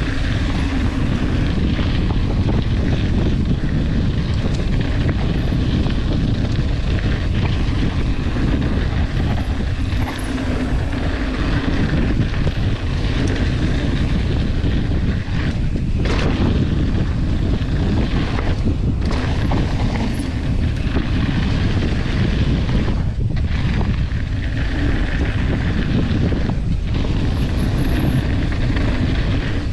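Wind rushing over the camera microphone and mountain-bike tyres rolling over a gravel trail at speed on a descent, a steady loud noise with a few brief lulls.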